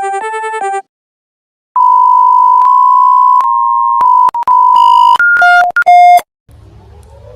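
Electronic emergency alert alarm tones: a repeating two-note warble cuts off, and after about a second of silence a loud steady beep tone sounds, breaks up and stutters about four seconds in, then switches to rapid alternating high and low beeps before stopping. Near the end a fainter rising siren-like wail starts over a low rumble.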